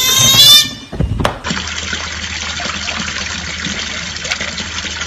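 Water running and splashing steadily over a small stone garden fountain, starting about a second and a half in. Before it, a loud high-pitched tone cuts off about half a second in, followed by a couple of knocks.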